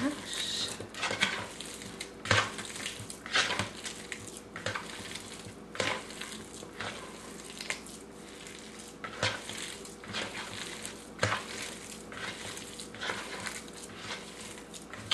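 A bare hand smashing and kneading canned Spam in a plastic bowl: soft squishing of the meat with irregular knocks against the bowl, roughly one a second.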